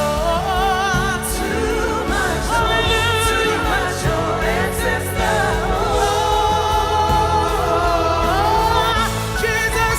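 Live gospel worship music: several singers holding long notes with vibrato over a band.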